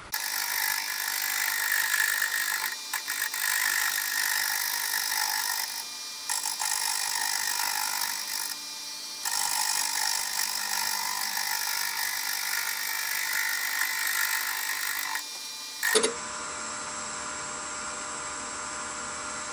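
Turning tool cutting an offset-mounted wooden blank spinning on a Nova wood lathe, cutting quite roughly as the off-centre wood meets the tool. The cut lifts off briefly twice. About sixteen seconds in the cutting stops and the lathe runs on alone with a steady hum.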